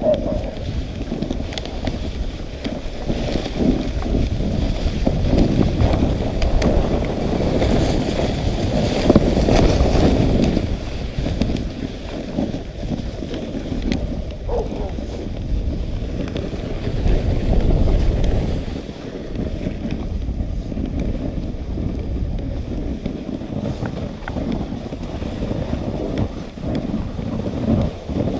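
Dog sled running over snow behind a dog team, a steady rushing noise from the runners, with wind buffeting the microphone. It grows louder for a couple of stretches, about a third of the way in and again past halfway.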